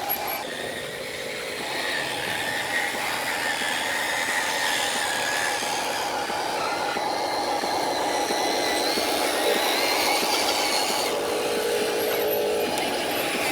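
Small electric motor and plastic gearbox of a toy RC truck running under load, a whine that rises and falls in pitch with throttle over a steady grinding noise.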